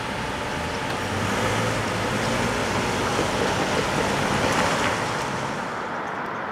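Cars driving across a wet road, the hiss of their tyres swelling as one passes close and then fading.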